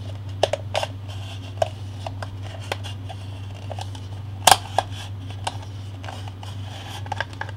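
Something being cut by hand: scattered light clicks and snips, with one sharper snap about halfway through, over a steady low hum.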